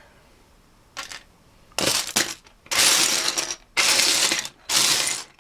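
Loose plastic Lego pieces clattering as hands rake and sift through a pile, in about four rummaging bursts starting about two seconds in, after a single short clack about a second in.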